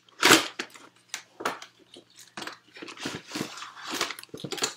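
A cardboard box with a clear plastic window being handled and opened: irregular crinkles, rustles and taps, the loudest a burst just after the start.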